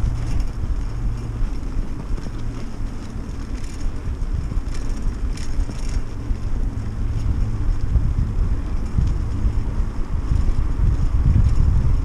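Wind buffeting the microphone of a camera riding on a moving bicycle, a steady low rumble, with a few short rattles or clicks about four to six seconds in.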